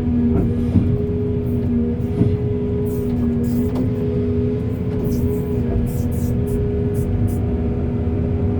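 Backhoe loader's diesel engine running steadily under load, with a steady two-note whine over a low rumble and scattered short clicks.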